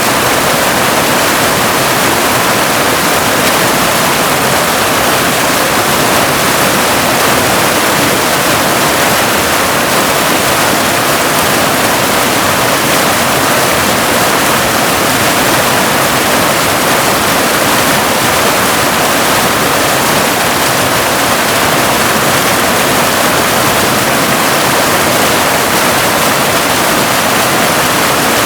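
Waterfall: a steady, unbroken rush of falling and splashing water, mostly hissing and bright, with little deep rumble.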